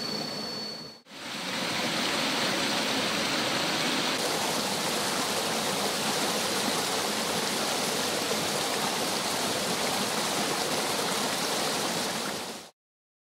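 Shallow stream water rushing and splashing over rocks, steady and fairly loud. A thin high steady tone sounds over it only in the first second, the sound dips briefly about a second in, and it cuts off suddenly near the end.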